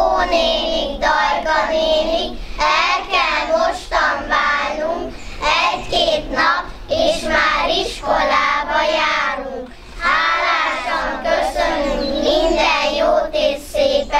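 Children singing a song in Hungarian, a farewell song to the kindergarten teacher.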